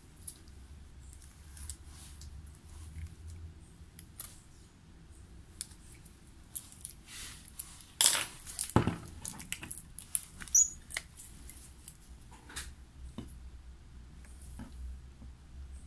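Small metal dental instruments handled during a wax-up of a bruxism splint: light scattered clicks and scrapes, with a louder clatter about eight seconds in and another about ten and a half seconds in, over a faint low hum.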